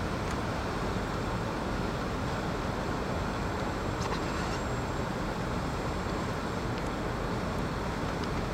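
Steady traffic noise on a snow-covered road: passing vehicles and their tyres making an even hiss and rumble.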